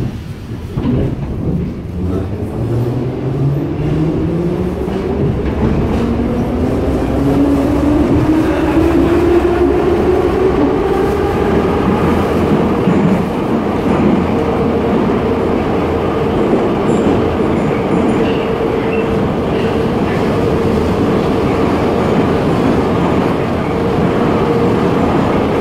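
Old metro train heard from inside the car as it accelerates: the traction motor whine rises in pitch over about twelve seconds, then holds steady as the train runs at speed. Under it runs a constant rumble of the wheels on the rails.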